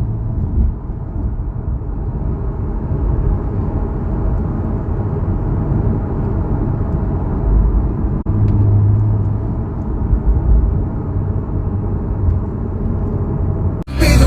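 Car engine running with a deep, steady drone, broken by a brief dropout about eight seconds in and again near the end.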